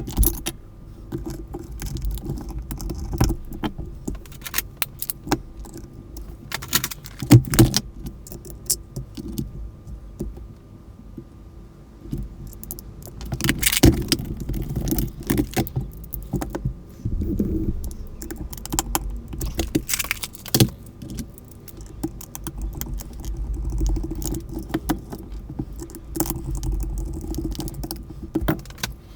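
Hard plastic parts of a Sanyo cordless telephone being handled and taken apart: irregular clicks, taps and small rattles, a few louder clacks among them.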